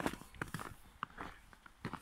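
Footsteps crunching through fresh snow, several steps in a loose walking rhythm.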